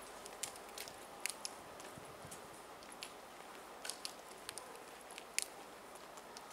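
Steady even hum of a standing Taiwan Railways EMU3000 electric train, its air-conditioning and auxiliary equipment running, with scattered sharp clicks throughout. The loudest click comes about five seconds in.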